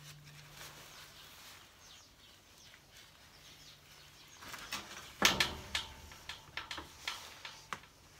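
Quiet handling noises of a wet rag wiping fresh sealant around a wood-stove pipe: faint rustling and a scatter of small clicks and taps, thickest from about four and a half seconds in, with the loudest tap about five seconds in.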